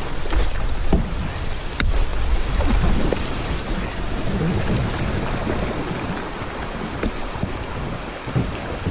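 Wind buffeting the microphone over the rush of moving river water, with a sharp click about two seconds in.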